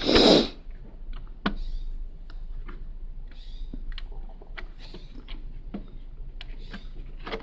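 Plastic Lego pieces clicking and knocking as they are handled, with birds chirping faintly in the background.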